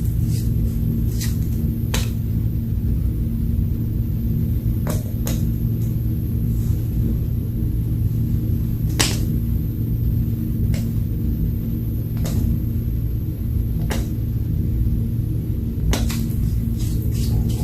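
Slime being worked by hand, with scattered small pops and clicks about every second or two, over a steady low hum.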